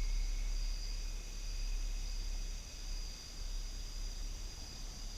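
Steady high-pitched trilling of crickets, with a steady low hum underneath.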